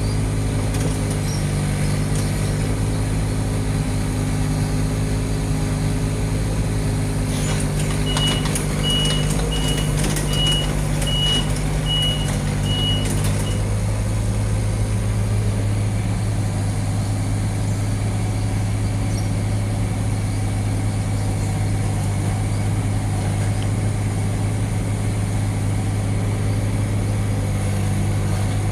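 Diesel engine of a digger (small excavator) running steadily, with its travel warning alarm beeping about seven times in a row a third of the way in, amid a few metal knocks; the engine note changes just after the beeping stops.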